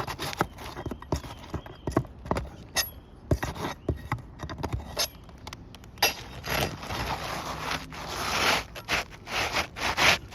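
A new 3-tab asphalt shingle being handled and fitted on a roof: scattered taps and knocks, then gritty scraping from about six seconds in as the shingle is worked in under the course above.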